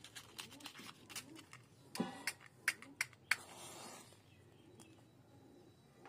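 A wooden safety match taken from a matchbox with a few light clicks, then struck on the side of the box: several sharp scrapes about two to three seconds in, followed by a short hiss as the match head flares alight.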